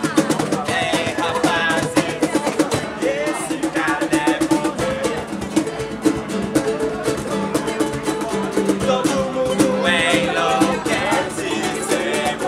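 Acoustic guitars strummed in a quick, steady rhythm while a man sings: a live acoustic performance of a rock song.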